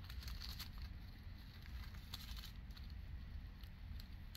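Faint crinkling and clicking of small plastic bags of square diamond-painting drills being handled, over a low steady hum.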